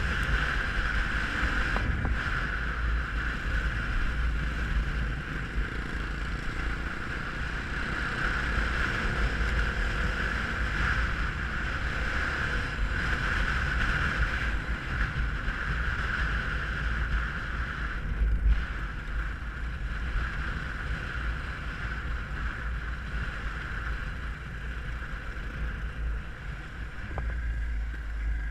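Dirt bike engine running steadily under way, with wind noise on the helmet-mounted microphone.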